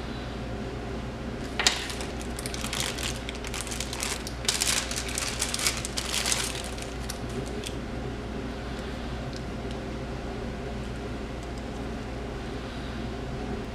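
Clear plastic bag crinkling and rustling as hands unwrap a car charger cable, with a sharp click just before it starts; the rustling fades out about halfway through, leaving a steady low hum.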